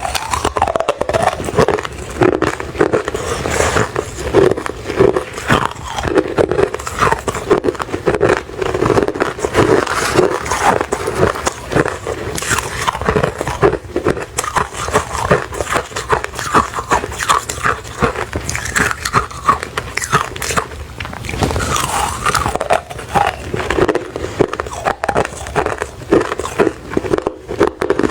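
Close-up crunching of refrozen crushed ice being bitten and chewed: dense, continuous sharp crackles with no pauses.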